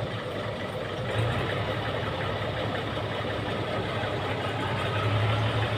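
Diesel engine of a heavily loaded International 676 tractor running under load in mud, with a steady low hum that grows louder about a second in and again near the end.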